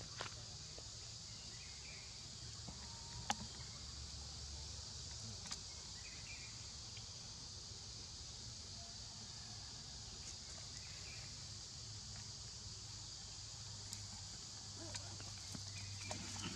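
Steady high-pitched drone of insects, with a few light clicks, the sharpest about three seconds in.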